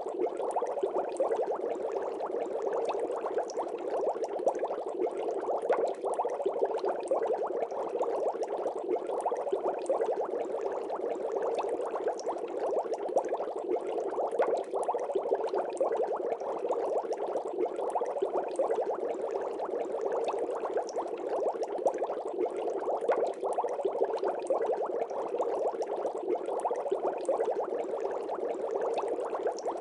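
Steady bubbling water, a dense, unbroken stream of small bubbles popping, with no change in pace or level.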